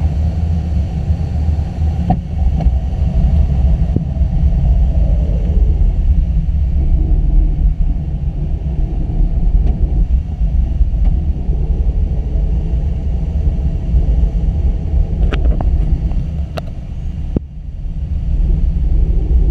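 Steady low rumble of air rushing over the canopy of a two-seat glider in flight, heard from inside the cockpit, with a few faint clicks. The noise eases briefly near the end.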